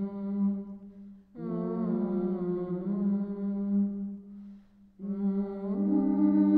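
Background music of slow, sustained low notes with a humming, chant-like quality. A new phrase begins about a second and a half in, and another about five seconds in that swells louder.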